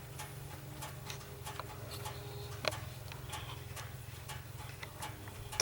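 Low, steady hum of a vehicle engine running at idle, with scattered light ticks and clicks.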